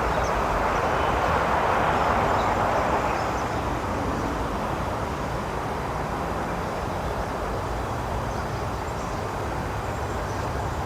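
Outdoor traffic noise: a vehicle swells past in the first three seconds, then a steady background hum of traffic carries on.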